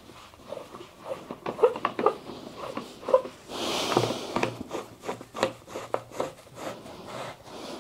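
Handling and assembling a cat tree: a run of short knocks and clicks as the sisal-wrapped posts and the plush-covered board are moved and fitted, with a longer rustling scrape a little before the middle.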